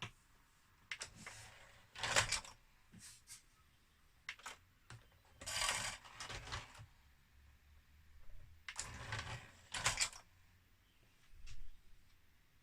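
Irregular clicks, clacks and short scrapes of a CD player's plastic loading tray and sled mechanism being moved and handled, with the strongest bursts about two, six and ten seconds in.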